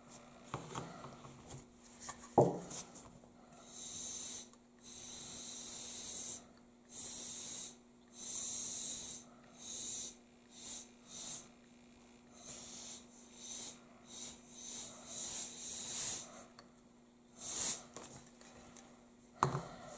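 A can of compressed air (canned air duster) fired through its straw nozzle in a dozen or so short hissing bursts of varying length, blowing wet alcohol ink across the plastic. A single sharp knock comes shortly before the first burst.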